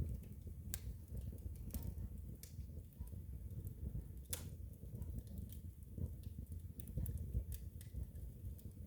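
Wood fire crackling in a fireplace: a steady low rumble of burning with sharp pops and snaps scattered at irregular moments.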